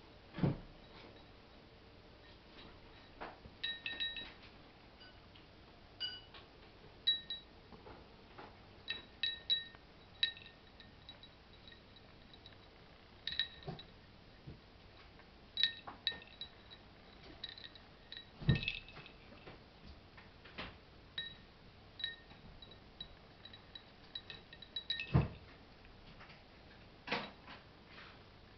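A cat eating from a small ceramic plate: irregular light clinks and ticks as the plate is nudged and briefly rings, with three louder dull knocks of the plate against the floor, near the start, about two-thirds in and near the end.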